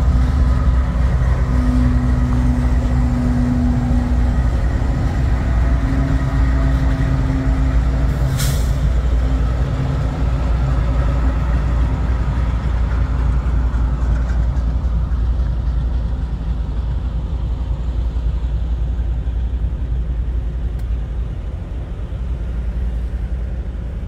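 Rear distributed-power diesel locomotives of a freight train, a Union Pacific unit followed by a CSX unit, running past at slow speed with a steady engine drone and hum. A brief hiss of air comes about eight seconds in, and the sound fades gradually over the second half as the locomotives move away.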